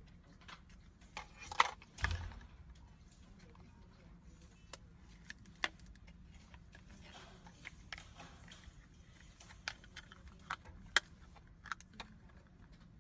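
Scattered light clicks and taps of a clear plastic lash case and cardboard lash boxes being handled, opened and closed, with a sharper pair of knocks about two seconds in.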